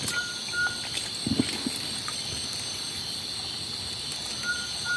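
Steady high-pitched chorus of night insects along a forest stream. Short high peeps come twice at the start and twice near the end, and a few brief low sounds come about a second and a half in.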